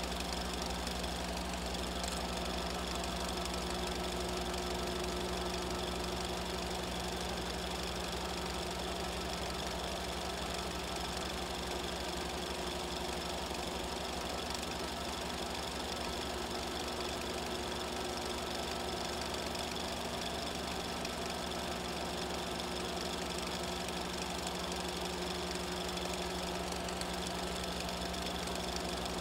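A machine running steadily: a constant mechanical hum and whirr with several fixed tones, unchanging throughout.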